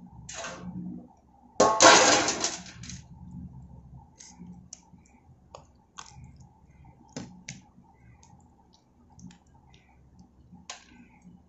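Hand rubbing thick, wet masala paste onto tilapia in a pan: wet squishing and pressing, with a louder scraping smear lasting about a second near the start, then scattered soft clicks and ticks.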